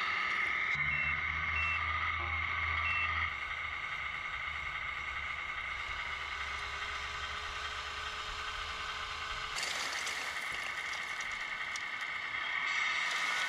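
Model truck's sound unit playing a simulated diesel engine and reversing beeper through its small speaker as the truck backs up. From about ten seconds in, a rush of rocks sliding out of the tipped dump trailer onto the pile.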